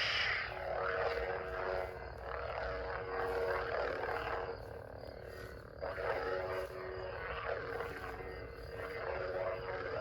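Theory Sabers Soldier lightsaber's sound font: a steady pitched hum with swing sounds that swell and fade as the blade moves. The loudest swells come on suddenly at the start and again about six seconds in.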